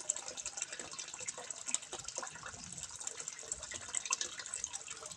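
Water trickling and splashing into a fish pond, a steady patter of small splashes.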